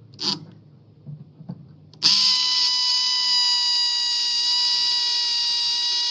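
Power drill motor running at a steady speed for about four seconds, starting about two seconds in. Before it, a short scrape and a few light clicks.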